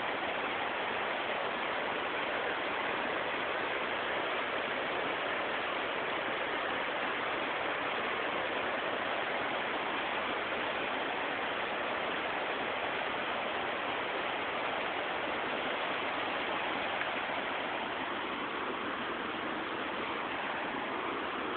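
A waterfall and a mountain stream running fast and full with spring snowmelt: a steady, even rush of water.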